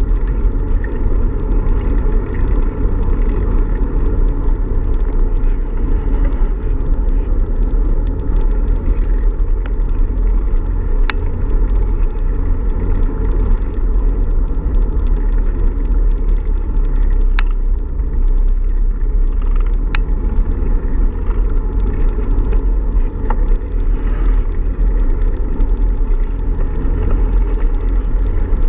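Steady low rumble of wind buffeting and road vibration on an action camera riding on a moving bicycle, with a few sharp clicks.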